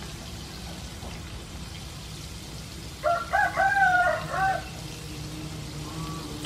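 A rooster crows once about three seconds in, a cock-a-doodle-doo of about a second and a half, over the steady sizzle of battered squid deep-frying in a pan of oil.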